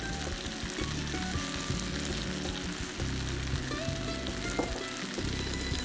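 Mutton pieces frying in a stainless steel pan, with a steady sizzle, over background music.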